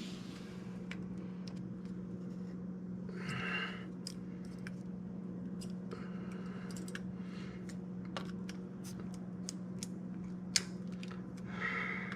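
Light metal clicks and short scrapes of hand tools working the nut cap onto the truck's front spindle nut, with one sharper click about ten and a half seconds in, over a steady low hum.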